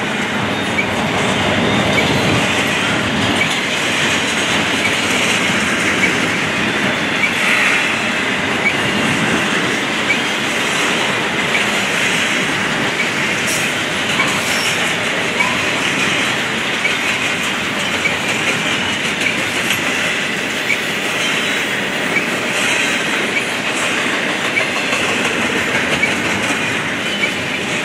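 Double-stack intermodal well cars of a freight train rolling steadily past: a continuous rumble and rattle of steel wheels on the rails, with many small irregular clicks from the wheels and couplings.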